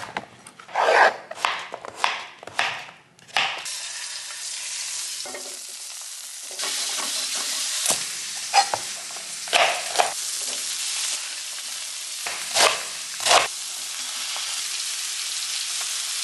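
A knife chopping vegetables on a plastic cutting board for the first few seconds, then sliced cabbage and zucchini sizzling in oil in a hot stainless steel skillet, with a few louder knocks of stirring.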